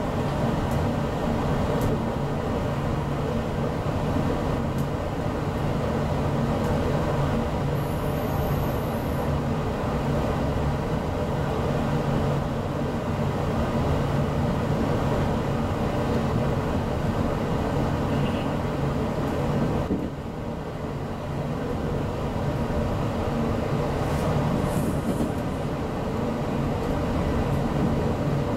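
GO Transit commuter train running, heard from inside the passenger coach: a steady rumble of wheels on track with a constant low hum, briefly a little quieter about twenty seconds in.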